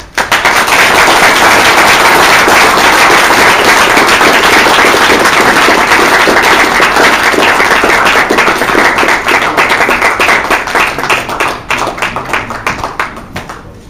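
Audience applauding, starting suddenly and loud, then thinning into scattered separate claps about twelve seconds in before dying away.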